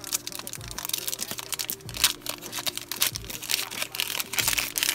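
Foil trading-card pack crinkling and tearing as it is ripped open by hand, a dense run of sharp crackles. Background music with a slow, steady beat plays underneath.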